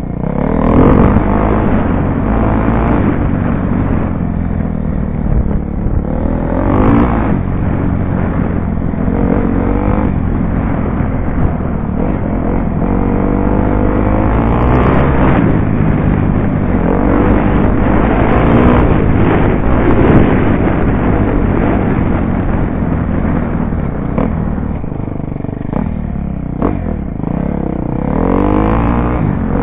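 A 2012 KTM 250 SX-F dirt bike's single-cylinder four-stroke engine running under hard throttle, heard from a helmet-mounted camera. The revs climb in pitch again and again as the bike accelerates, with a steady low rumble underneath.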